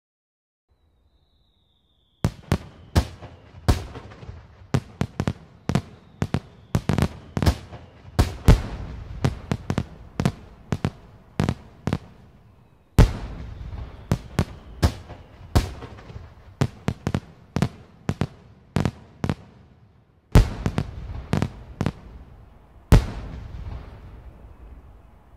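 Fireworks display: after about two seconds of quiet, dozens of sharp aerial bangs follow in irregular quick succession, some in tight clusters, each trailing off in a rumbling tail. The bangs thin out near the end.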